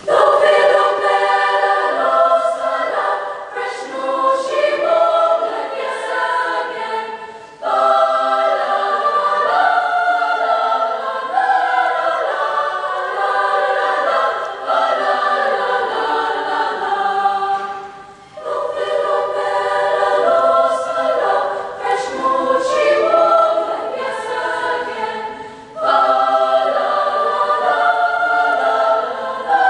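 Choir singing, starting together suddenly, in long phrases broken by three brief pauses.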